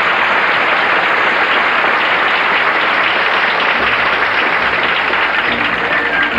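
Audience applauding steadily and loudly for an ice show number, with music starting up again near the end.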